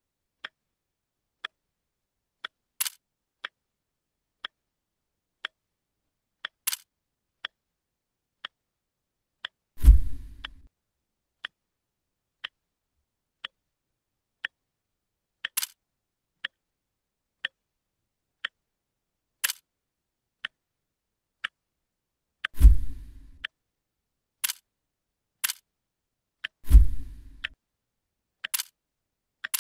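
Clock ticking steadily, about one tick a second, with a few sharper clicks among the ticks. Three heavy, dull thuds break in, about a third of the way through and twice near the end; these are the loudest sounds.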